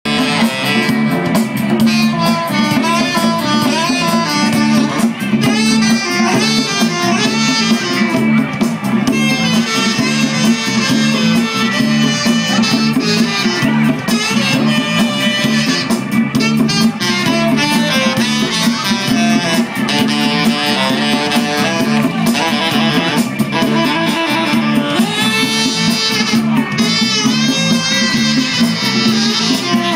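Live band playing: a saxophone plays a melody over electric guitars, with a steady repeating bass line underneath.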